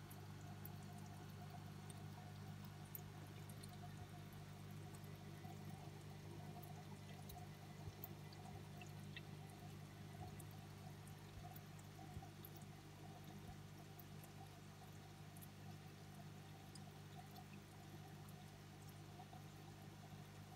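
Faint trickle of aquarium water over a steady low hum.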